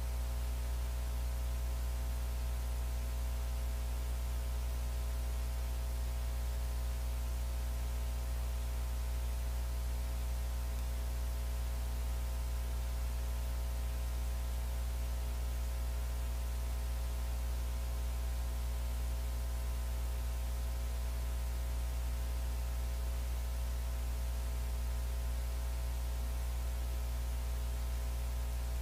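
Steady electrical mains hum with a buzz of higher overtones and light hiss; no crowd, voices or blows are heard.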